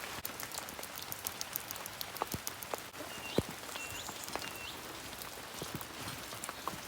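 Steady rain falling, with many separate drops striking close by. Three short, faint, high chirps sound near the middle.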